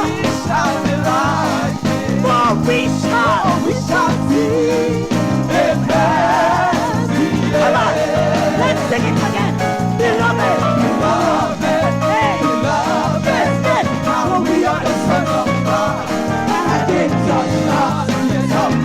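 Live gospel worship music: a band playing a steady, upbeat groove with a pulsing bass line, and wavering melodic runs over it.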